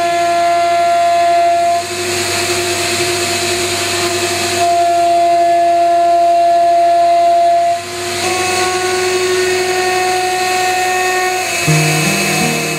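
AXYZ 7012 CNC router's HSD spindle running with a steady high whine over a hiss as the head moves across a sheet on the table. The whine dips and shifts slightly in pitch a few times. Acoustic guitar music comes in near the end.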